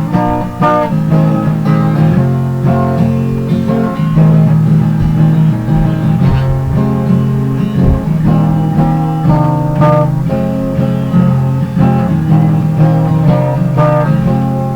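Instrumental music led by guitar, with plucked and strummed notes over a steady bass line.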